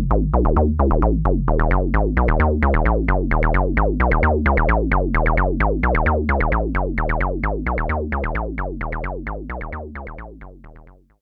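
Moog Werkstatt-01 analog synthesizer playing a fast sequenced bass line: short, quickly decaying notes, about six a second, with deep bass and changing pitch. It fades out near the end.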